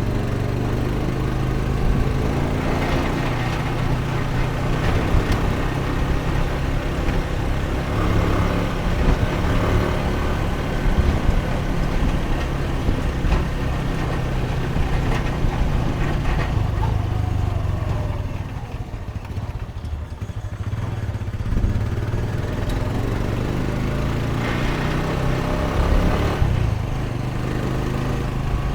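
A motor vehicle's engine running steadily, dropping back for a few seconds about two-thirds of the way through before picking up again.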